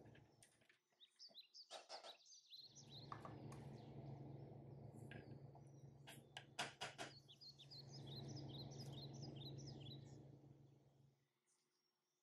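Faint birds chirping over a steady low background hum, with a few short sharp clicks about two seconds in and again around six to seven seconds in. The sound fades away near the end.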